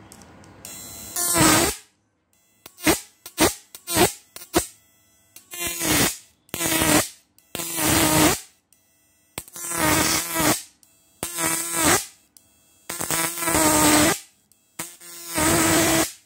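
High-voltage output of a homemade 12 V electric fishing inverter arcing against a steel adjustable wrench, buzzing in repeated bursts as the wire is touched on and pulled away: several short buzzes, then longer ones of about a second each.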